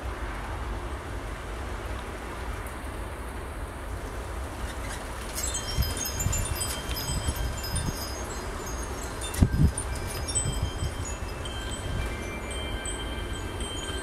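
Wind chimes ringing in gusty wind, their scattered high notes starting about five seconds in. Under them runs a steady low wind rumble on the microphone, and a gust buffets the microphone hard about two-thirds of the way through.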